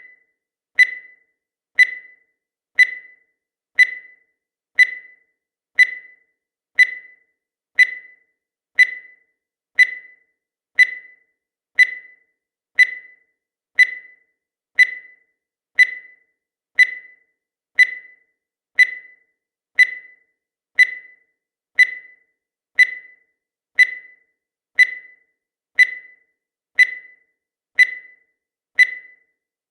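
Countdown timer sound effect: a short, high tick once every second, each one dying away quickly.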